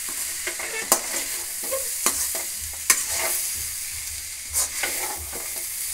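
Chopped okra frying in a pan, sizzling steadily while a spatula stirs it, scraping and knocking against the pan about five times.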